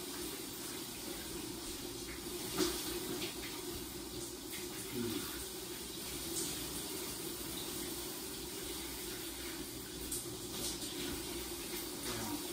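Shower running behind a glass door: a steady rush of falling water, with a few brief louder splashes.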